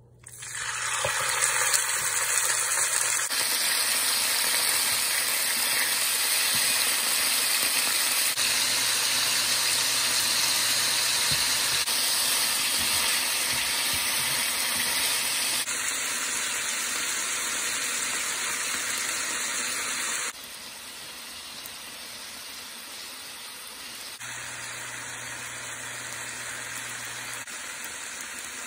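Chicken pieces sizzling in hot oil in a frying pan, a dense steady hiss that starts suddenly as the chicken goes in. About two-thirds through, the sizzle drops abruptly to a quieter level.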